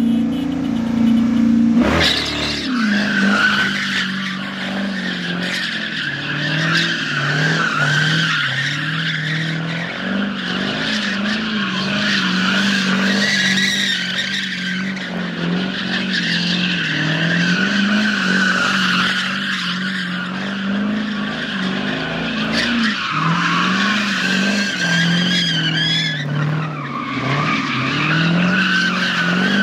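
A car drifting, its tires squealing steadily while the engine is held at high revs that rise and fall.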